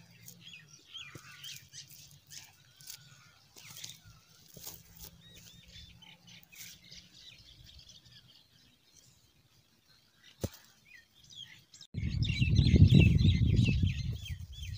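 Small birds chirping in short, quick calls, fading to near quiet for a few seconds; about twelve seconds in, a loud low rumble starts suddenly under renewed, busier chirping.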